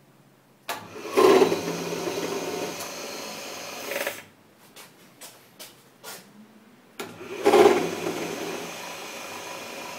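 Rockwell vertical milling machine's motor and belt drive started twice, each time running for about three seconds and then shutting off. Each start opens with a loud burst of vibration that then settles to a steady run. The caption calls it a nasty vibration at startup, which the owner puts down to the problem with the continuous V-belt.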